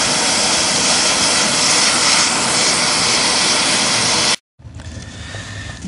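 Oxy-fuel cutting torch cutting through steel plate: a loud, steady hiss. It cuts off abruptly about four and a half seconds in, leaving only a quiet background.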